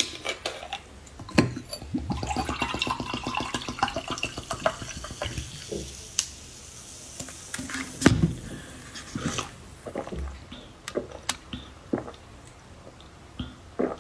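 Orange juice gurgling and slurping close to the microphone as it is drunk, in a fast, even run for about four seconds. Scattered clicks and knocks follow, with one sharp knock about eight seconds in.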